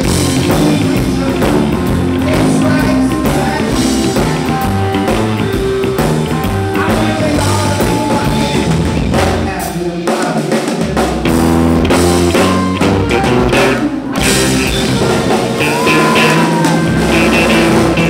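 Live blues band playing: electric guitar lead over bass and a drum kit.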